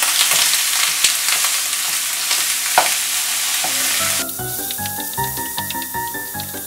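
Partly frozen ground turkey sizzling in hot oil in a skillet, with a wooden spatula scraping and knocking against the pan as it breaks up the meat. About four seconds in, the sizzle cuts off and background music takes over.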